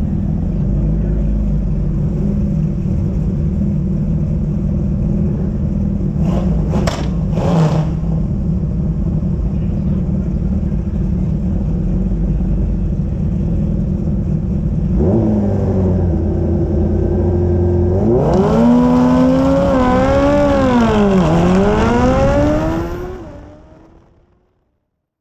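Drag-racing vehicle engines running loudly: a steady heavy rumble, then about fifteen seconds in an engine revs hard, its pitch climbing, dipping once at a shift and climbing again, before the sound fades away near the end.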